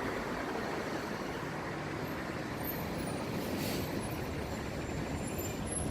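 Steady road traffic noise, an even hum of passing vehicles with no single event standing out.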